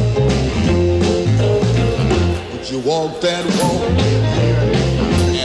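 Music: a rock-and-roll style song with a stepping bass line and a singing voice.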